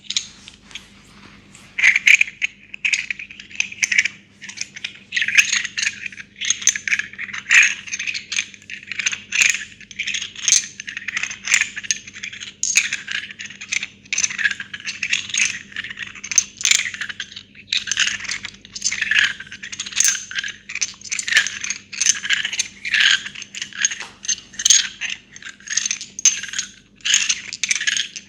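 Hands rubbing and scratching through hair on the scalp during a head massage, a rapid crackly rustling with small clicks, close and loud, over a faint steady hum.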